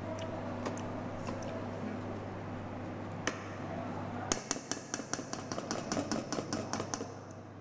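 A serving spoon scraping and scooping cooked rice in an electric rice cooker's non-stick inner pot, with a few light clicks. From about four seconds in there is a rapid run of sharp taps, about five a second, as the spoon is knocked against the pot to shake off sticking rice. A low steady hum lies underneath.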